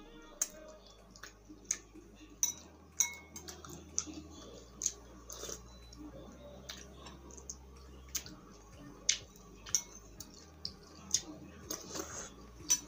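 Close-up eating sounds: a metal spoon clinking against a glass bowl of misua noodle soup, with slurping and chewing of the noodles. There are many short, sharp clicks and smacks at irregular intervals.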